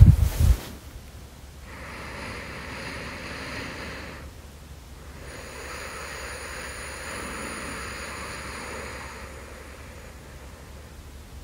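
A person's slow, deep breathing close to the microphone, in the manner of someone asleep: two long soft breaths with quiet pauses between. There are a few low muffled bumps right at the start.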